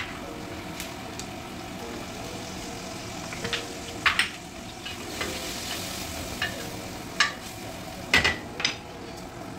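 Wooden spoon stirring food in a stainless steel pot, knocking sharply against the pot several times, over a steady frying sizzle.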